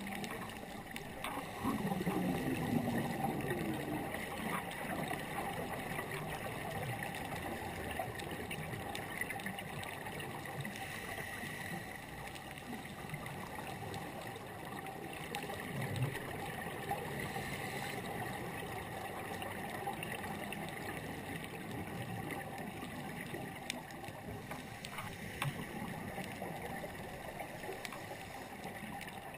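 Underwater ambience picked up through a dive camera's housing: a steady hiss and hum, with gurgling bubbles of scuba divers' exhaled breath, loudest about two seconds in and again about halfway through.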